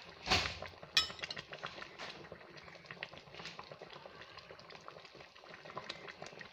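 Catfish pepper soup boiling in a stainless steel pot, with a steady crackle of small bubbles popping. Near the start there is a knock and then a sharp metallic clink, like a spoon against the pot.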